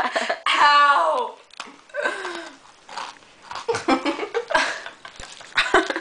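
Girls laughing and giggling in short bursts.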